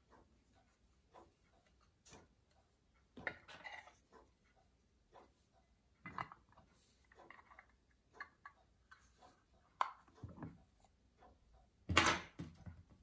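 Light clicks and small knocks of a metal hunter pocket-watch case and small metal hand tools being handled on a workbench. A louder clatter of tools comes near the end.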